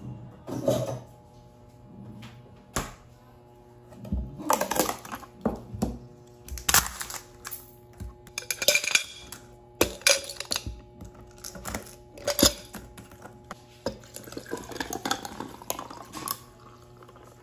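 Ice cubes from a plastic ice tray dropping into a tall drinking glass with a glass straw in it: a string of sharp clinks and clatters of ice against glass.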